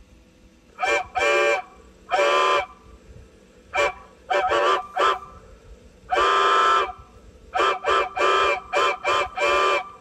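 Recorded horn sound effect played back by a CB radio sound module: a rhythmic run of about a dozen horn blasts, short toots mixed with longer ones, each sounding several notes at once.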